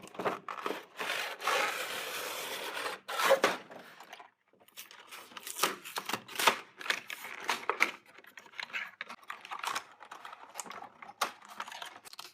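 Toy packaging being opened by hand: cardboard and plastic tearing and crinkling for a couple of seconds, followed by scattered clicks and rustles as the contents are handled.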